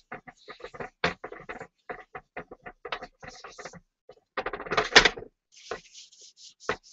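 A cloth rubbing over the lacquered surface of a bowl in short, uneven strokes, polishing the metal seam of a kintsugi repair. The rubbing is densest and loudest about five seconds in.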